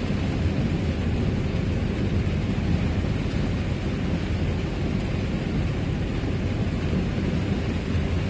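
Camper van driving on a wet road, heard from inside the cab: a steady low rumble of engine and tyre noise.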